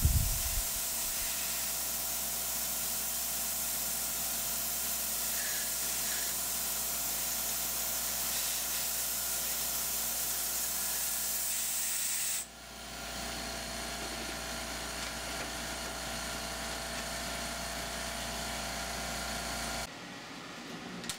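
Steady hiss of a coolant nozzle blowing on a 2/0 taper-pin reamer cutting through an AR15 gas block in a milling machine, over the low hum of the spindle motor. There is a brief low thump at the very start, and the sound drops abruptly about twelve seconds in and again near the end.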